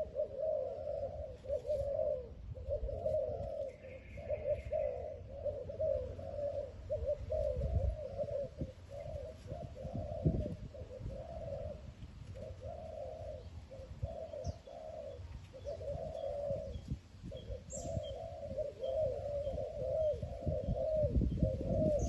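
Spotted doves cooing: low coo phrases repeated almost without pause, over a low rumble.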